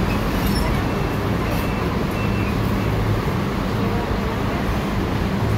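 Transjakarta bus idling at the platform, its engine giving a steady low hum over general traffic noise.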